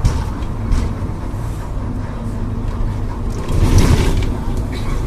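Volkswagen 17.230 OD bus's diesel engine running steadily, with a louder surge of noise and rumble about three and a half seconds in.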